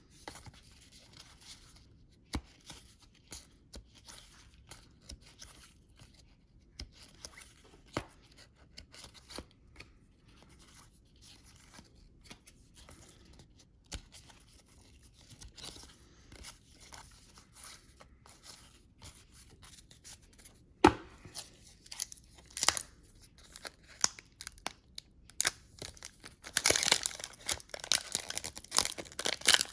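Trading cards handled with scattered small clicks and taps, then near the end a few seconds of loud paper rustling and tearing as a card pack's wrapper is torn open.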